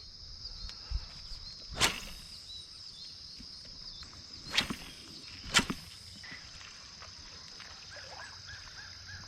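Steady high-pitched trill of crickets or other insects, broken by a few sharp clicks or knocks about two, four and a half, and five and a half seconds in.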